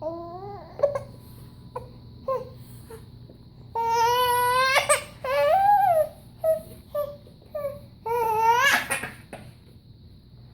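Five-month-old baby making strong, high-pitched vocal sounds: short cries and calls, with two long held cries about four and eight seconds in.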